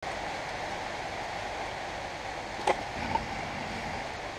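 A sharp metallic clink a little over halfway through and a lighter one just after, as the front hub assembly of a Land Rover Series 2a is worked off its stub axle, metal knocking on metal. A steady hiss runs underneath.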